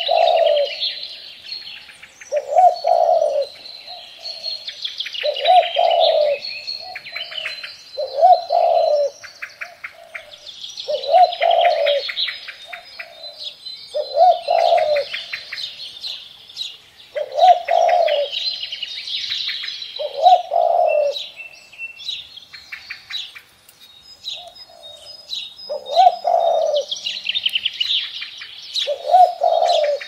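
Mourning dove cooing: a low coo repeated about every three seconds, about ten times, with a longer pause near the end. Other songbirds chirp and trill at a higher pitch throughout.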